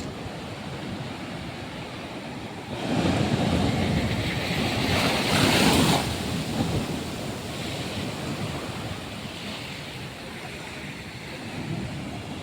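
Ocean waves washing onto a beach. Under a steady wash of surf, a wave surges in about three seconds in, is loudest a few seconds later, and then eases back.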